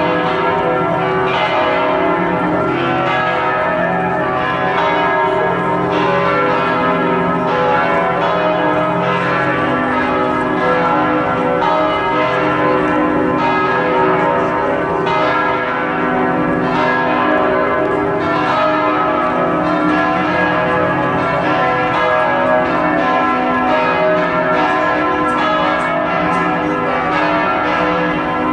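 Church bells of Notre-Dame Basilica in Montreal ringing together in a peal. Strokes follow one another steadily, and the bells' tones overlap and ring on into a continuous wash of sound.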